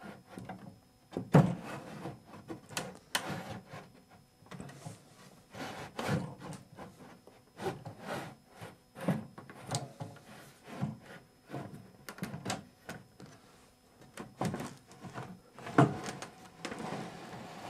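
Wooden tambour door slats clacking and rubbing in their track as the roll-up door is worked into the cabinet: a run of irregular wooden knocks and scrapes, the loudest about a second in.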